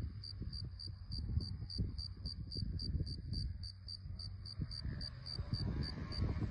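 An insect chirping steadily, about three short high chirps a second, over wind rumbling on the microphone. A faint drone of a distant light-aircraft engine enters about five seconds in.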